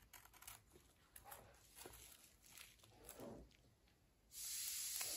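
Faint scratching and crinkling as a craft knife slits and lifts the plastic shrink-wrap on a notebook, in short scattered scrapes. About four seconds in, a steady hiss comes in.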